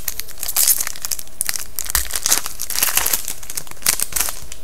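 Foil wrapper of a hockey card pack being torn open and crinkled by hand, in a series of crackly bursts that stop about four seconds in.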